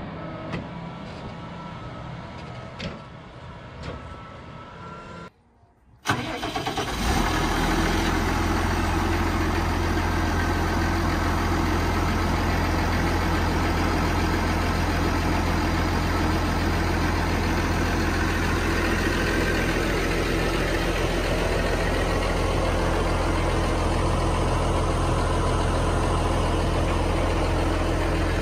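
Case IH tractor diesel engine starting about six seconds in, then running steadily at idle with a strong low, even note. Before it, a quieter stretch with scattered clicks, broken by a brief near-silent gap.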